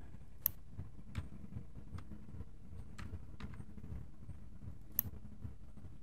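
Scattered clicks of a computer keyboard and mouse, roughly one a second, the two sharpest about half a second in and near the end, over a low steady hum.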